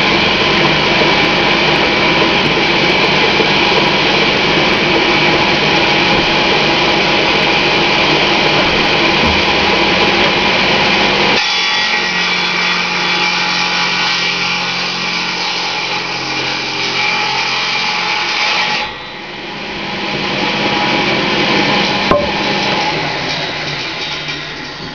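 Homemade table saw's 10-inch, 40-tooth blade, belt-driven by a 3 hp single-phase electric motor, running and cutting through a piece of oak. The sound changes character about eleven seconds in and dips sharply for a moment around nineteen seconds, then rises again. There is a sharp click a little after that, and the sound fades near the end.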